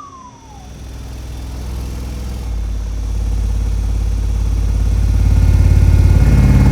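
Four 15-inch carbon fiber subwoofers in a ported box playing a deep bass test tone that grows steadily louder, with the cart and wooden pallet beneath the box rattling and flapping along with it.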